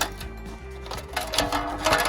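Background music with steady held notes, with a few sharp clicks and taps at the start and again near the end.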